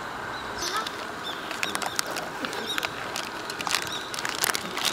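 Food crackling and popping in a hot pan: irregular sharp pops, several a second, some louder than others.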